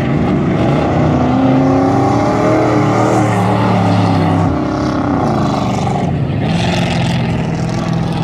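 Dirt-track race trucks' engines running at low speed under caution, one passing close with its engine pitch bending up and then down.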